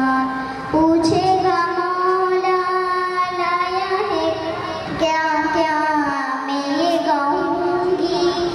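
A young girl sings a naat (an Urdu devotional poem in praise of the Prophet) into a microphone, unaccompanied. She holds long, wavering notes and starts new phrases about a second in and again about five seconds in.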